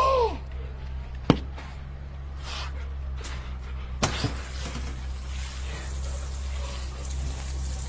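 Outdoor shower turned on with a sharp click about four seconds in, then water spraying and splashing steadily over a low hum. A brief falling groan is heard at the start and a single click just over a second in.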